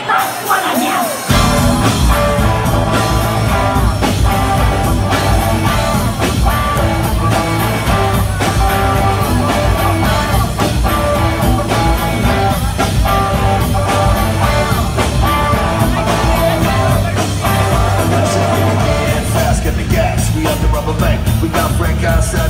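Live rock band playing the intro of a song: electric guitar, bass and drums, loud. The bass and drums come in about a second in.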